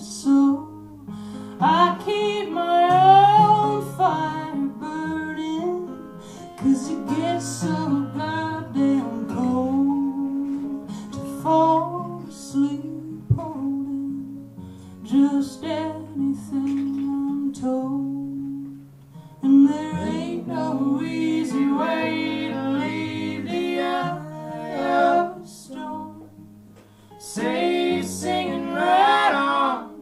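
Live acoustic folk music: acoustic guitar and double bass playing under singing, with the bass notes changing about once a second.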